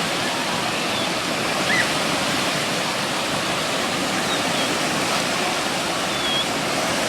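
Steady rush of falling or flowing water, even and unbroken, with a few faint, short high-pitched calls over it.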